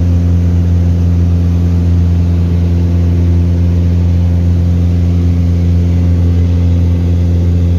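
Light aircraft's piston engine and propeller running steadily in flight: a loud, even, deep drone that holds one pitch throughout.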